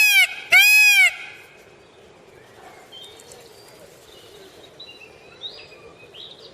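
Peacock giving two loud, arching calls in quick succession in the first second, followed by faint chirps of small birds.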